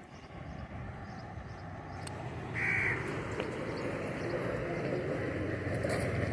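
A crow gives one short, harsh caw about two and a half seconds in, over a low rumble that slowly grows louder.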